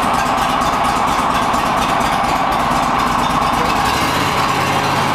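Walker H38 riding mower's engine running steadily after being started and throttled up.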